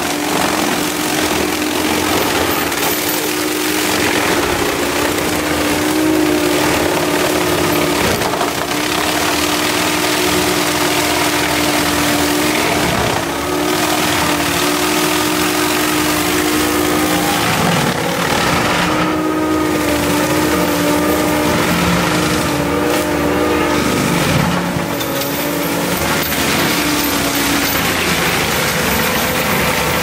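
Cat 299D3 compact track loader's diesel engine working under load while its hydraulic forestry drum mulcher spins and grinds through a standing tree and brush, chipping the wood. A steady whine runs over the grinding, and near the end the pitch rises.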